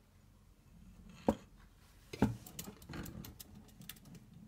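Metal knocks and clicks of coaster brake parts being turned and seated inside a bicycle rear hub: two sharp knocks about a second and two seconds in, then a run of light ticks.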